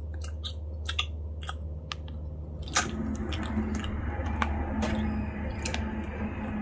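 Close-up chewing of a soft white-bread tuna sandwich: a string of short wet mouth clicks and smacks over a steady low hum.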